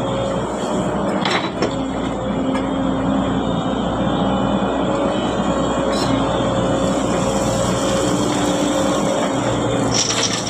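Excavator's diesel engine running steadily, its pitch shifting a little as it works, with a few short knocks about a second and a half in, around six seconds in, and near the end.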